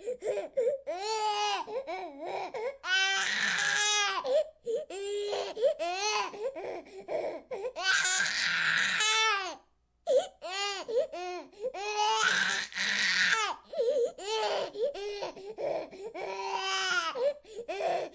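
Baby crying: a run of short, choppy cries broken by long, loud, high-pitched wails about every four to five seconds. The crying stops for a moment near the middle and starts again.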